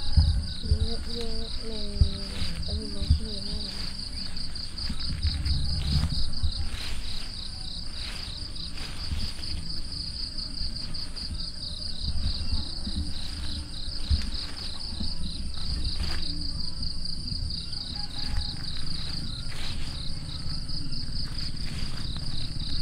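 Insects trilling in a steady, high-pitched, rapidly pulsing buzz, over low thumps and rumble.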